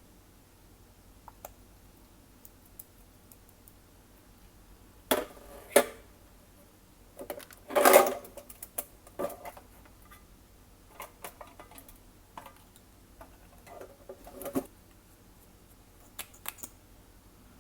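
Scattered clicks, taps and short scrapes from handling small containers and tools while mixing slime, loudest in a cluster about eight seconds in.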